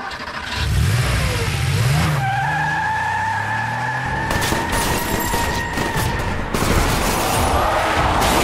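Action-scene sound effects: a car engine revving up and down, then a long tyre screech, with rapid bursts of gunfire from about halfway in.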